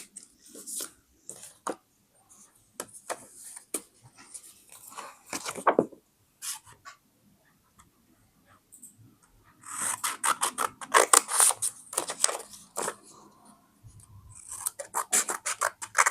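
Scissors cutting paper in runs of quick snips, with a quiet pause of a few seconds in the middle.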